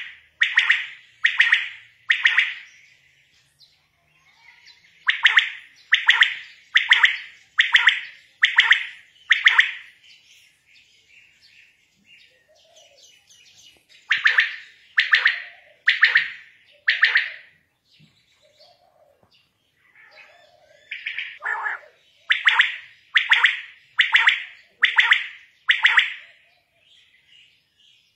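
Quail (batair) calling: loud, short, sharp calls repeated about once a second in runs of four to six, with pauses of a few seconds between runs.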